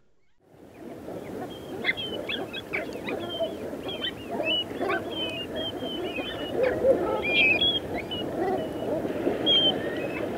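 A large flock of estuary waterfowl calling together: a dense, busy chatter of many birds with many short high whistles over it, fading in during the first second or so.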